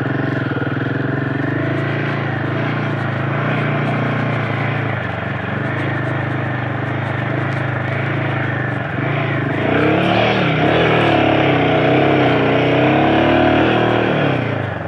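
Royal Enfield Himalayan 450's single-cylinder engine running steadily, then from about ten seconds in its pitch rises and falls as it is revved.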